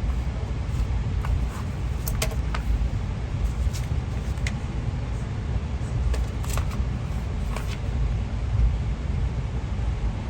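Low, steady rumble of a moving passenger train heard from inside a Skyline dome car, broken by several short, sharp clicks or creaks.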